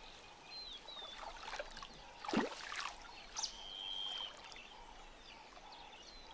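Quiet wetland ambience: short high bird whistles, one held for about a second, and a brief sharp watery sound about two and a half seconds in.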